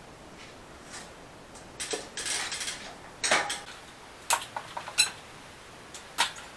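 Bicycle rear wheel being fitted back into the frame, with the cassette going into the chain: irregular metallic clicks and clinks, and a short rattling scrape about two seconds in.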